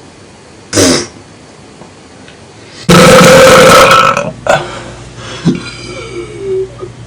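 A young man burping on purpose: a short burst about a second in, then one long, loud belch starting about three seconds in that lasts over a second before trailing off.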